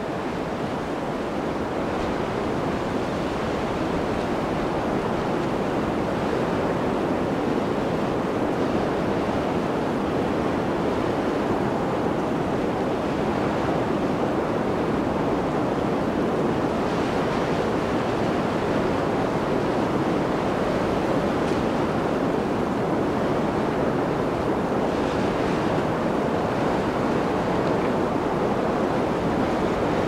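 Blizzard wind blowing as a steady, dense rush, with a hissier gust twice in the second half.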